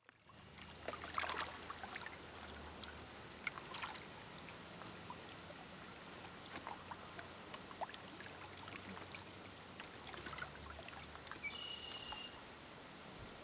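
Shallow water lapping and splashing faintly and irregularly against shore rocks, with many small splashes. A low steady hum runs underneath, and a brief high chirp comes about twelve seconds in.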